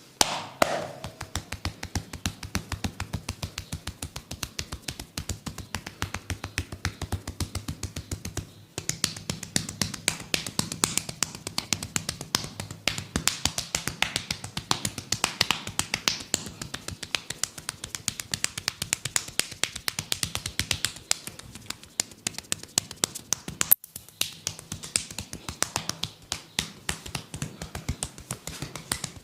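Fast rhythmic percussive tapping of a head massage, with many strikes a second. The tapping pauses briefly about nine seconds in and then comes back louder.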